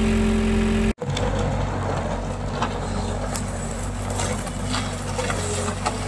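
An engine hum with steady tones, cut off suddenly about a second in. A loader's engine then runs steadily as the machine moves a long cedar log toward the sawmill.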